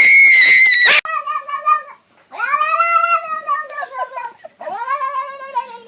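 Cat meowing. A loud, high cry breaks off about a second in, followed by a short call and two long, drawn-out meows that rise and then fall in pitch.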